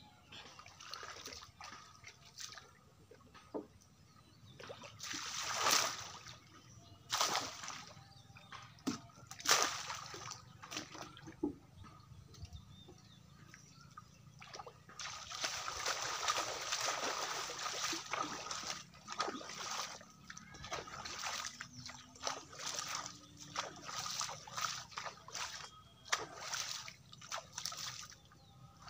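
Shallow pond water splashing and sloshing as a person wades and works in it. There are a few separate splashes in the first ten seconds, then a longer spell of steady splashing, then repeated short splashes.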